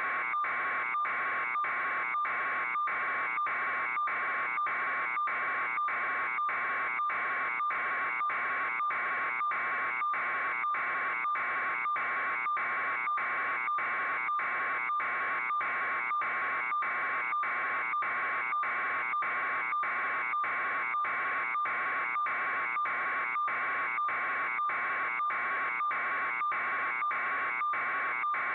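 Steady electronic buzz with a constant tone, cut by short regular dropouts about three times every two seconds.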